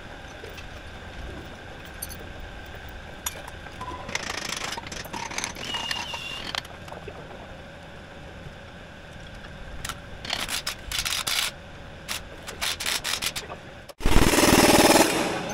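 Scattered metallic clinks and clanks of work on a crawler dozer's steel track chain. Near the end, after a cut, a much louder pneumatic impact wrench hammers on a track bolt.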